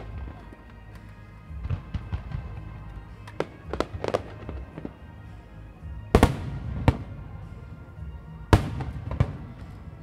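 Aerial firework shells bursting in a rapid string, the two loudest reports about six and eight and a half seconds in, each trailing off. Music plays underneath.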